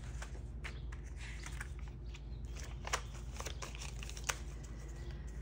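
Paper banknotes rustling and crinkling as a stack of bills is handled and counted, with two sharper clicks, one about three seconds in and one just past four seconds.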